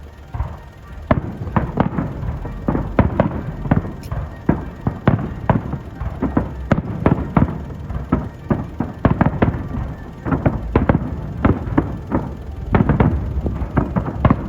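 Fireworks display: a rapid, dense series of bursts and bangs, several a second, starting about a second in.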